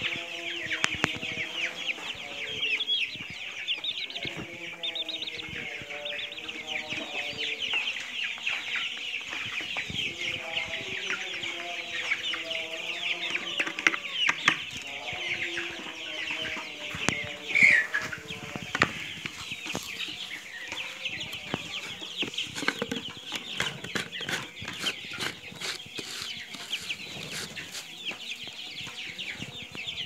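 A flock of chickens calling steadily: low clucking under a dense chorus of short, high peeping calls, with one louder falling call a little past halfway. Scattered light clicks run through it.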